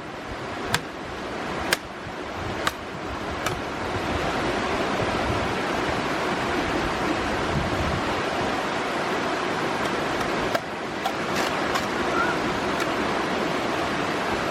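Steady rushing of stream water, with sharp knocks about once a second in the first few seconds and twice more near the end.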